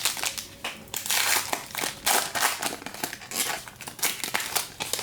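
A trading-card pack wrapper being torn open and crinkled by hand, a dense run of irregular crackles that stops near the end.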